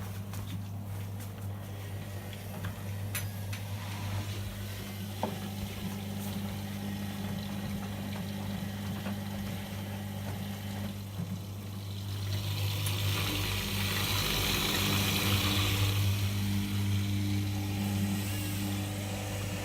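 Whirlpool washing machine running a synthetics 60° cycle: a steady low electric hum under a hiss of water, with the water rushing louder from about twelve seconds in.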